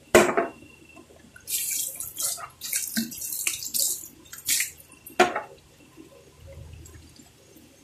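Kitchen tap water splashing into a clear plastic bowl in the sink, in uneven gushes for a few seconds, then running more softly. A sharp knock comes at the very start and another about five seconds in.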